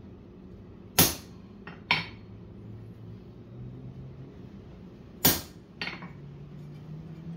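Sharp metal-on-metal knocks, four in all in two close pairs about four seconds apart, over a low steady hum.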